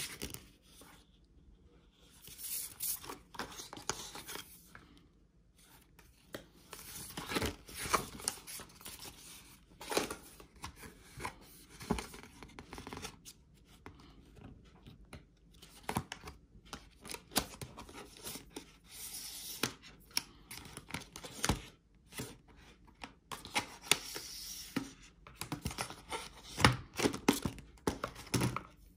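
Apple Watch cardboard packaging being handled: card inserts sliding and lifting out of the box, paper and plastic wrapping rustling and tearing, with many sharp clicks and taps in irregular spurts.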